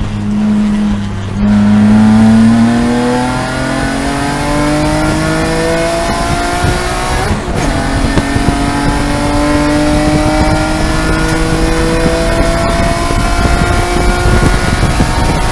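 BMW E46 M3's S54 straight-six race engine heard from inside the cabin, pulling hard at full throttle out of a slow corner. The revs climb steadily, break once about halfway through for an upshift that drops the pitch, then climb again.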